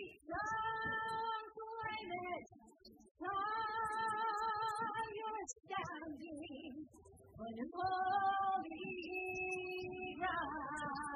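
Choir singing slow, long held notes in several phrases, with short breaks between them.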